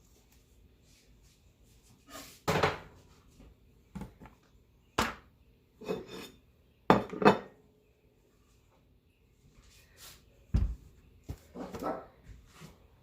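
A metal serving utensil clinking and scraping against a baking dish, in a string of separate knocks about a second or two apart, as an enchilada is cut and lifted out of the pan.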